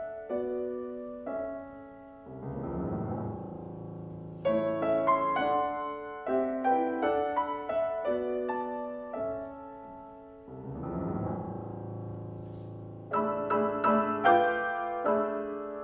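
Solo piano played on a C. Bechstein concert grand: separate struck chords and notes ringing out, broken twice by a low rumbling run of bass notes, a few seconds in and again past the middle.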